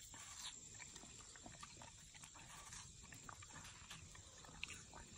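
Belgian Malinois licking and slurping at a wedge of watermelon: faint, irregular wet smacks and clicks of tongue and mouth on the juicy flesh.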